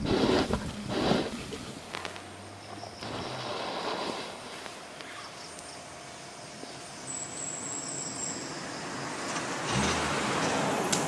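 Outdoor background noise with a few rustles in the first second or so. A faint high thin tone sounds in the middle. A low mechanical drone swells in near the end.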